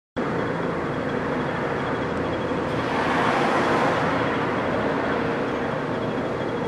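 Engine running steadily with a constant hum and a thin whine over it, swelling briefly about three seconds in.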